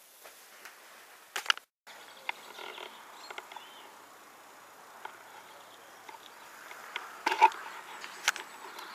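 Faint outdoor background hiss broken by scattered clicks and knocks, the loudest cluster a little past seven seconds in.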